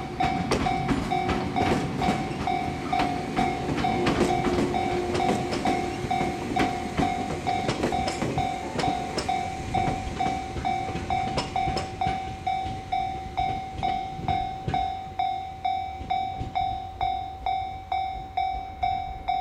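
Japanese level-crossing alarm ringing steadily at about two dings a second. Over it, the wheels of the four-car TWILIGHT EXPRESS Mizukaze train click over the rail joints with a low rumble as it crosses. The clicking thins out and fades over the second half.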